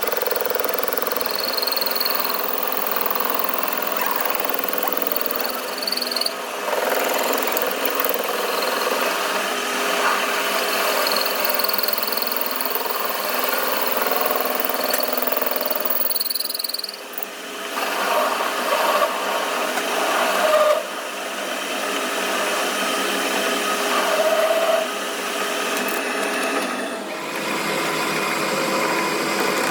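Workshop power tools running with a steady mechanical whir and noise, with occasional brief high-pitched squeals. The sound changes abruptly three times as one machine sound gives way to another.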